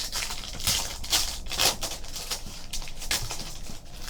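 Trading cards and pack being handled by hand: an irregular run of quick swishes and clicks, several a second, as cards are slid and flipped.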